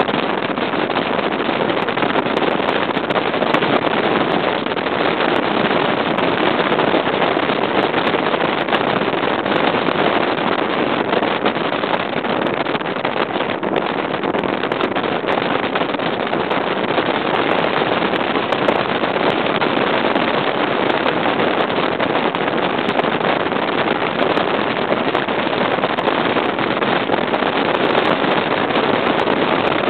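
Stratos bass boat running fast under its Mercury 200 EFI outboard: a loud, steady rush of wind and water noise.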